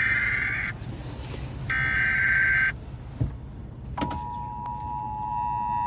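Emergency Alert System broadcast over FM radio: a one-second burst of SAME digital header data, a screeching electronic warble, ends just after the start; a second identical burst follows about a second later. About four seconds in, the steady two-tone EAS attention signal starts.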